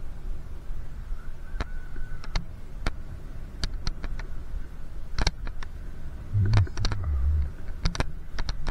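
Riding noise from a moving bicycle: a low wind and road rumble with irregular sharp clicks and rattles scattered through it, and a couple of heavier low buffets past the middle.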